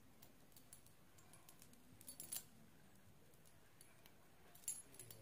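Near silence: room tone with a few faint, short clicks, a small cluster about two seconds in and two more near the end.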